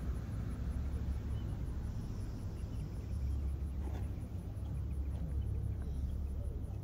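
Open-air ambience: insects chirping in a fast, even high pulse over a steady low rumble, with a faint tap about four seconds in.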